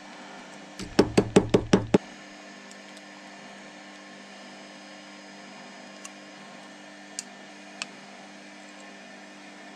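A small hammer striking aluminium drink-can metal held in a steel ring: about seven quick, sharp blows in just over a second, then a few faint metallic clicks.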